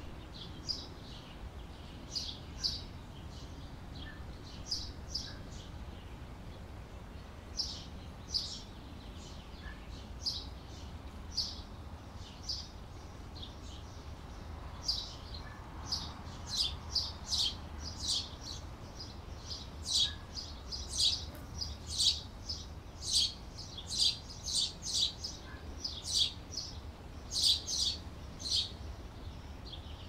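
Canaries chirping in short, high calls. The calls are scattered at first and come faster and louder through the second half, over a low steady hum.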